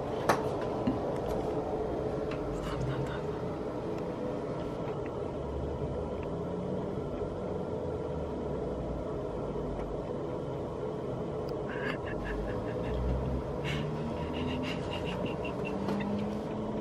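A steady low rumble throughout. Near the end, soft laughter from two adults comes in short repeated pulses.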